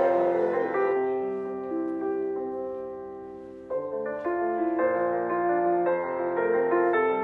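Background piano music of slow, sustained notes that fades away and then picks up with a new phrase about three and a half seconds in.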